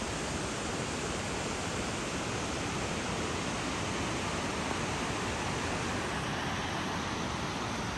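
Steady rushing of the Tallulah River's rapids in the gorge below, an even unbroken noise.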